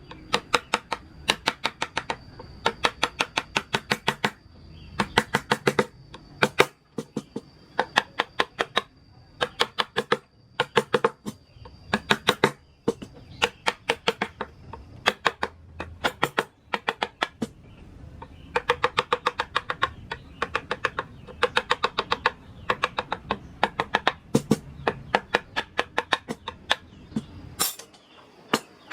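Wooden mallet tapping a wood-carving chisel into wood, in rapid runs of sharp taps, several a second, with short pauses between runs.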